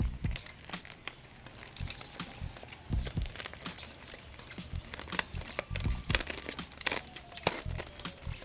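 Plastic packaging crinkling and tearing as a parcel is unboxed, with irregular clicks and low knocks of handling.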